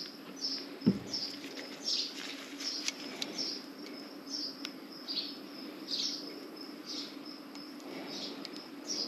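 Short high chirps repeating about one and a half times a second over a faint steady hum, with a single knock about a second in.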